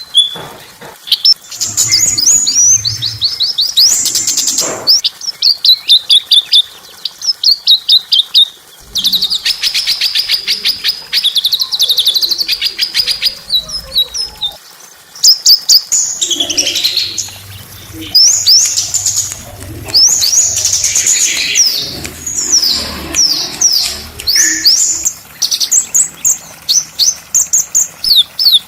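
Small songbirds singing, a dense run of high-pitched chirps, quick down-sweeping notes and fast rattling trills, played as a masteran tutor recording for caged songbirds.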